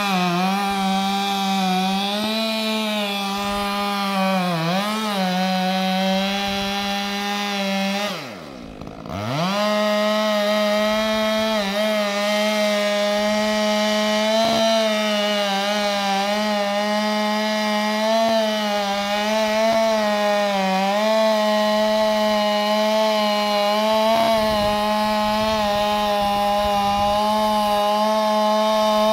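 Stihl MS462 two-stroke chainsaw fitted with a Bark Breaker aftermarket exhaust, running at full throttle while cutting into the trunk of a large hardwood tree, with a steady high engine note. About eight seconds in, the revs drop sharply for a second and climb back up, and the saw runs on in the cut.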